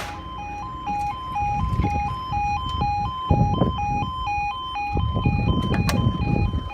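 Level crossing yodel alarm sounding: an electronic two-tone warble switching rapidly between two pitches, warning road users of an approaching train. A low rumble runs underneath.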